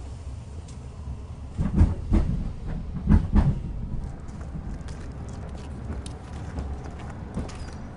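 Railway train at a station: a steady low rumble with a few heavy clanks about two and three seconds in, followed by many light, rapid clicks.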